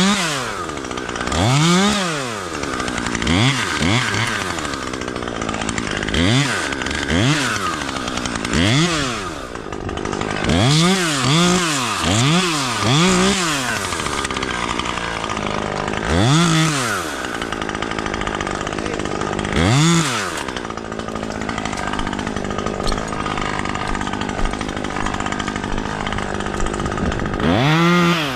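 Husqvarna 540iXP battery chainsaw revved up and let back down again and again in short pulses, about a dozen times. Near the end it runs more steadily for several seconds.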